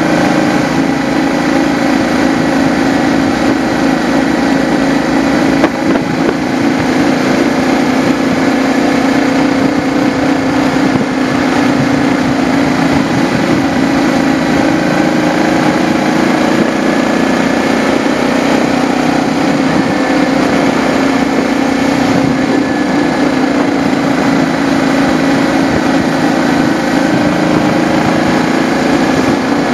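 Motorcycle engine running at a steady cruise, its pitch drifting slightly with the throttle, with a single short knock about six seconds in.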